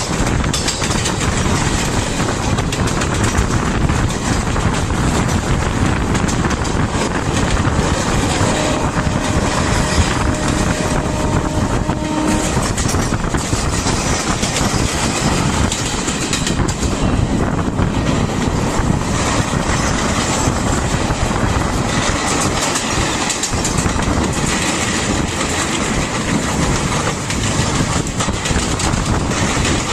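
Trains running side by side at speed: the steady running noise of wheels on rail, recorded from a moving train with wind on the microphone. A steady pitched tone sounds for about four seconds about a third of the way in.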